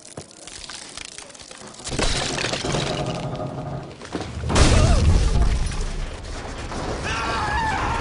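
Cartoon crash sound effects: a loud clatter of breaking and shattering from about two seconds in, then a heavier crash with a deep thud about halfway as a market stall canopy topples over.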